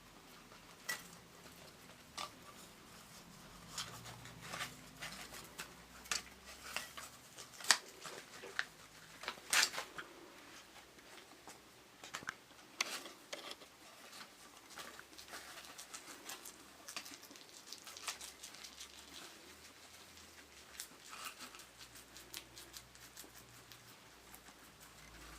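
Guinea pigs gnawing and rummaging at rolls stuffed with fresh food, making irregular crunching, rustling clicks that are busiest from about four to thirteen seconds in.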